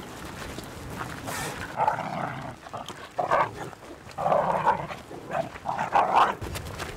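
A dog barking: about five short barks, spread from about two seconds in to near the end.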